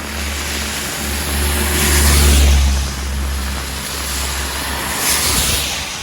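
Heavy rain with a motor vehicle passing on the wet road: a low engine rumble that swells to its loudest about two seconds in, and tyres hissing through the water in two swells, around two and five seconds in.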